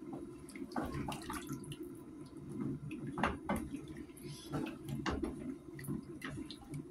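Liquid splashing and bubbling in a pot of beef and potato stew, with scattered small clicks throughout.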